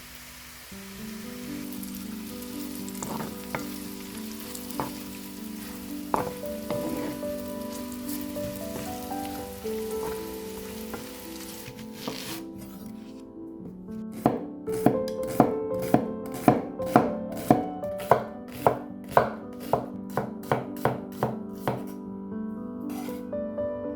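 Knife chopping on a cutting board, sharp even strokes about two a second in the second half, over background music with held notes. Earlier there is a faint hiss with a few scattered knocks.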